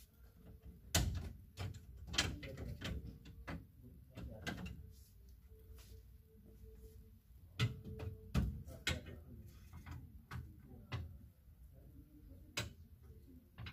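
Clothes hangers clicking and clacking on metal display rails as garments are slid along and rearranged, in irregular sharp knocks, with a faint steady hum underneath.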